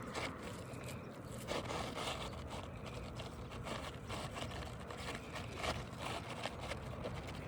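An asphalt roof shingle being cut down to fit, heard as a run of short, irregular rasping scrapes.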